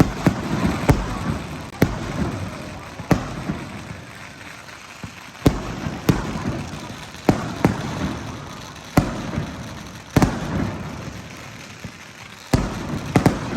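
Fireworks exploding: about a dozen sharp bangs at irregular intervals, each trailing off in a crackling rumble.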